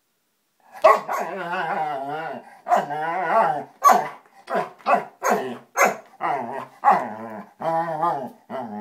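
Wiggly Giggly dog ball giving out its wobbling, warbling giggle as the dog paws and rolls it, mixed with the dog's short, sharp barks during play.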